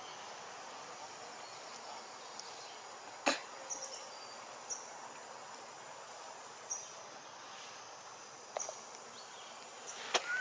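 Outdoor forest ambience: a steady hiss with short high chirps every second or two, and a sharp click about three seconds in, with fainter clicks near the end.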